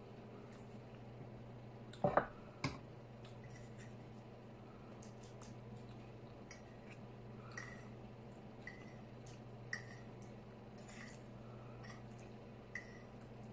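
Close-up eating sounds of chili cheese fries: a few sharp clicks of a fork on the plate about two seconds in, then soft chewing with small wet mouth clicks, over a low steady hum.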